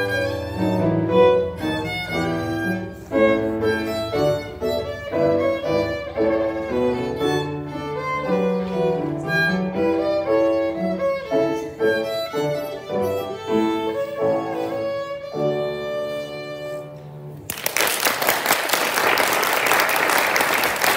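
Solo violin playing the closing phrases of a gavotte, ending on a held final note. Applause breaks out about seventeen seconds in and carries on to the end.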